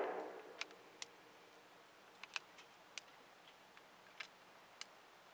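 The tail of a gunshot's echo fading out in the first half-second, followed by a handful of faint, scattered sharp clicks.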